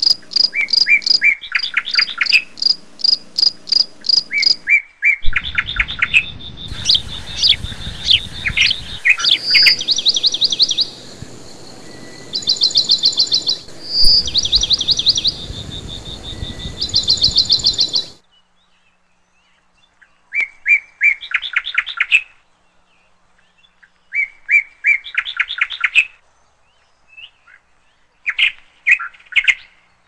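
Small birds chirping in rapid trilled runs of short, high notes, phrase after phrase. A steady background noise under the first half cuts off suddenly about 18 seconds in, leaving separate bursts of chirps with silent gaps between them.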